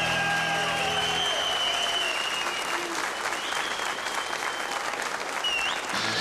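Audience applauding at the end of a song. The band's last chord dies away about a second in, and an electric guitar starts playing near the end.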